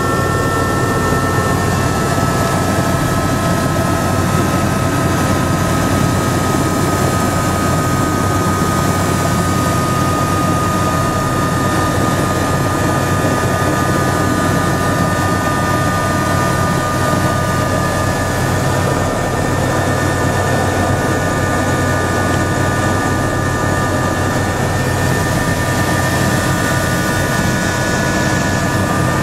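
Helicopter engine and rotor heard from inside the cabin: a steady low rotor drone with a constant high whine over it.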